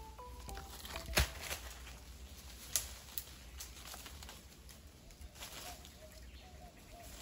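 A few sharp snaps and knocks of tree branches as a man climbs a tree, the loudest about a second in and another near three seconds. A short tune of music ends in the first moment, and faint bird calls come in the second half.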